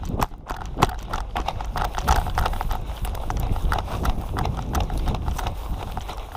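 Footsteps and rattling kit as a player moves, heard as a string of irregular knocks and clicks, a few a second, over a steady low rumble.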